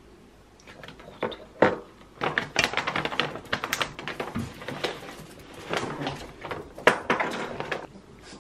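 Crinkling of a clear plastic snack pouch and clicking of dry, hard pet treats being handled and broken apart: many quick irregular crackles that start about a second in and continue until near the end.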